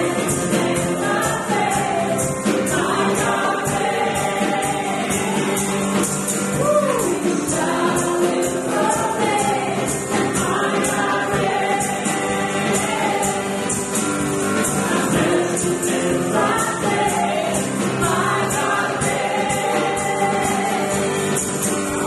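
Christian worship music: a group of voices singing a song together over a steady tambourine shake.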